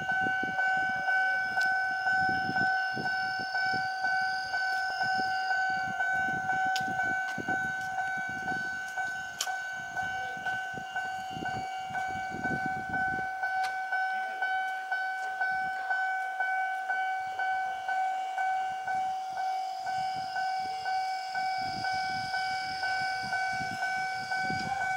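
Japanese railway level-crossing warning bell ringing in a fast, even rhythm of electronic dings, signalling an approaching train.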